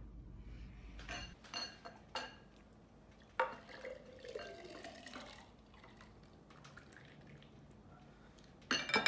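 Green vegetable juice poured from a glass mixing bowl into a small glass jar, trickling and dripping, with a few clinks and knocks of glass against glass, the sharpest a little over three seconds in and a cluster near the end.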